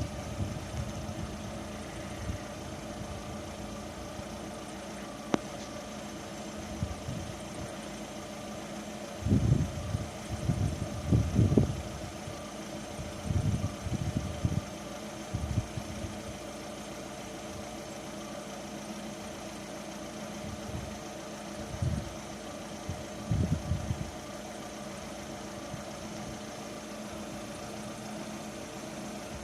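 Lada Vesta engine idling steadily, with several short bursts of low rumble in the middle.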